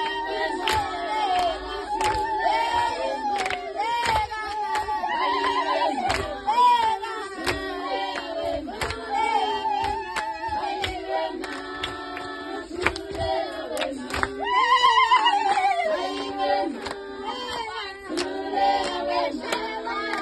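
A group of high female voices singing together in a traditional ingoma dance song, with sharp percussive hits keeping time about once a second.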